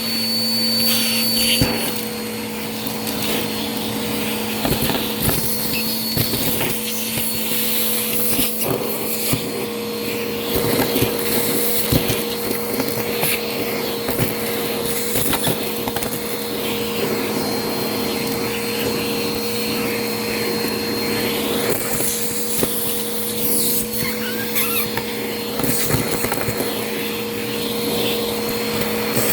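Vacuum cleaner running steadily with a constant motor hum, picking up crunchy debris that crackles and clicks irregularly as it is sucked in.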